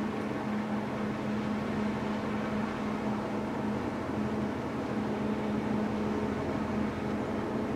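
Steady low drone of a passing LNG-powered container ship's machinery, with a constant hum tone running through it.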